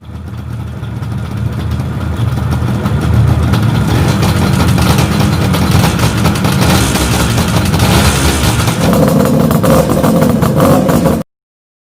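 Suzuki GT380 two-stroke three-cylinder motorcycle engine running loudly through its exhaust. The sound builds over the first few seconds, holds steady, then cuts off abruptly near the end.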